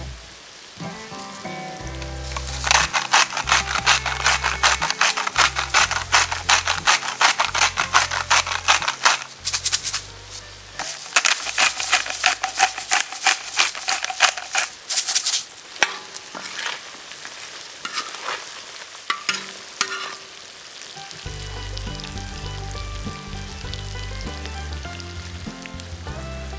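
Mutton tails and onions sizzling in a steel plough-disc pan while they are stirred and scraped in rapid strokes. The stirring runs for about thirteen seconds, thins out, and stops about twenty seconds in, leaving the frying sizzle on its own.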